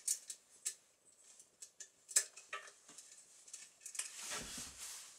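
Light plastic clicks and knocks from hands handling a Husqvarna 353 chainsaw on a workbench, the sharpest about two seconds in, with a short rustle around four seconds in.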